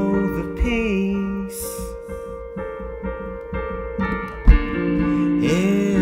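Live song on a stage keyboard with an electric piano sound, sustained chords, and a voice singing a few held, bending notes near the start and again near the end. There is a single sharp low thump about four and a half seconds in.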